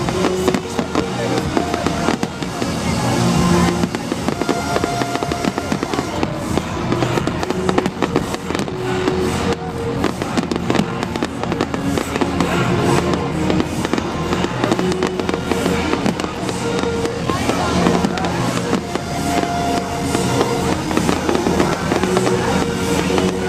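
Fireworks display: many bangs and crackles going off in quick succession over loud electronic music from a sound system.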